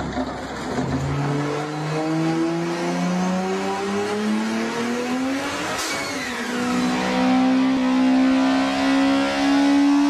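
Car engine revving steadily higher under full throttle, then a sharp bang just before six seconds in as the engine blows, with a falling whine after it. A high-revving engine note then rises slowly again.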